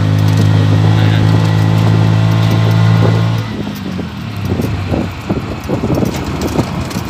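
Vehicle engine running with a steady hum, heard from inside an open-sided passenger vehicle. About three and a half seconds in the hum drops away and uneven rattling and knocking take over as the vehicle rides along.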